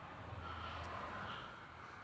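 Faint breathing and sniffing close to the microphone, over a low steady hum.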